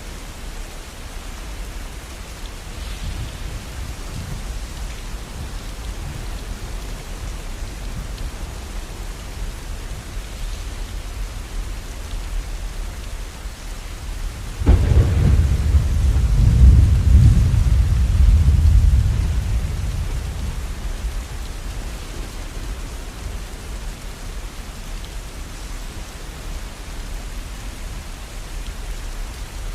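Steady rain falling, with a sudden thunderclap about halfway through whose low rumble rolls on for several seconds before fading back under the rain.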